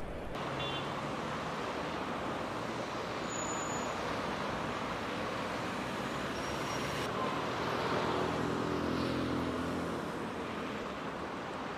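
City street traffic: a steady hum of cars. A passing vehicle's engine comes up loudest about eight seconds in.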